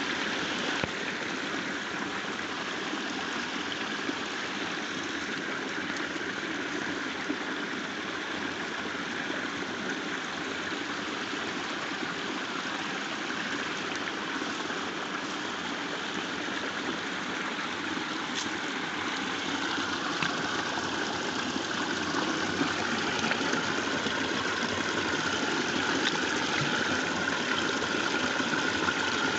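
Water of a small waterfall and its stream rushing steadily, growing a little louder in the last third.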